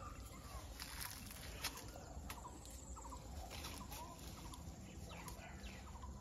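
Faint short calls of fowl, repeated every second or so, with a few sharp clicks, the loudest about a second and a half in.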